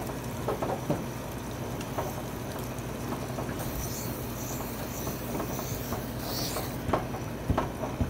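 Water running out of a newly filled electric water heater's open outlet fitting and splattering down the wall below: the tank is full and the trapped air has been bled out. A couple of sharp clicks near the end.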